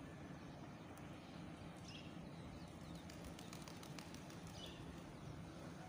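A bird's short, falling chirp, heard twice, over faint steady outdoor background hum, with a brief patter of faint clicks in the middle.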